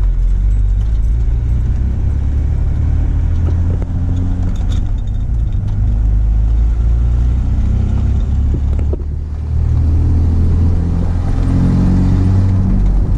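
Ford F-150 pickup driving on the road, its engine running with a steady low drone. The engine eases off briefly about nine seconds in, then pulls again with rising pitch as the truck accelerates.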